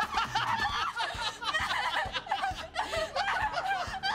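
Audience laughter from a sitcom laugh track: many people chuckling together throughout.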